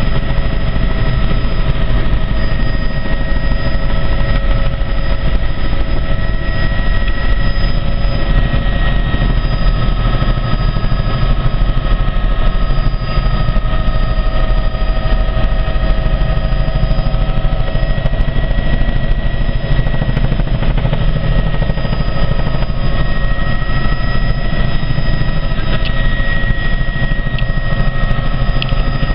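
Helicopter in flight: a steady, loud drone of rotor and engine with a heavy low rumble and several steady whining tones above it, unchanging throughout.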